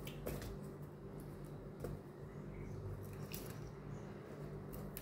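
Wet, freshly caught fish being shifted by hand in a sink: faint slippery squelches with a few light knocks.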